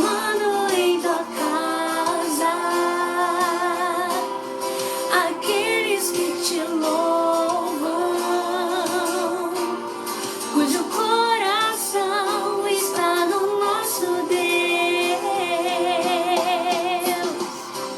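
Gospel music: a woman singing long held notes with vibrato over instrumental accompaniment.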